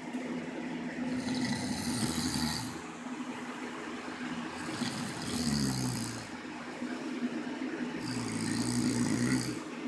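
A cat snoring in its sleep: three snores about three seconds apart, each a low buzz with a breathy hiss over it.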